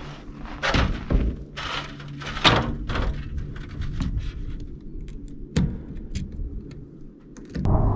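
Thunks and scrapes of a step ladder being set against a large plastic water tank and climbed, a few loud ones in the first three seconds, followed by scattered small clicks and knocks of hands working a plastic bulkhead fitting on the tank wall.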